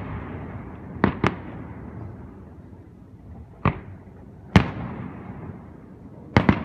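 Aerial fireworks shells bursting: six sharp bangs, a quick pair about a second in, two single bangs in the middle and another quick pair near the end, each trailing off in a rumbling echo.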